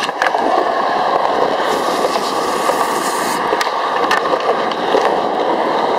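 Skateboard wheels rolling on smooth concrete, a steady rumble, with a couple of sharp clacks from a board a little past halfway as the skater pops a trick.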